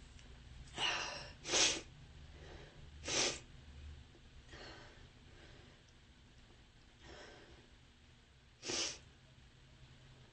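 A woman's small sneezes and sniffs: short, breathy bursts about a second in, one and a half seconds in and around three seconds, then one more near the end.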